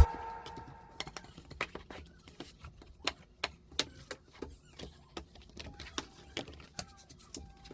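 Irregular light clicks and taps, a few each second, with some louder ones scattered through.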